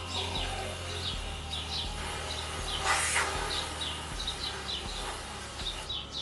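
Birds chirping repeatedly in short calls throughout. About three seconds in comes one short spray hiss, about half a second long, from an aerosol can of white foam being sprayed onto a head.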